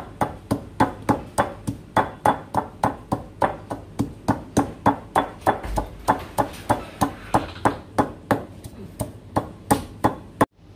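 Knife chopping on a cutting board in a steady rhythm, about four strikes a second, stopping abruptly near the end.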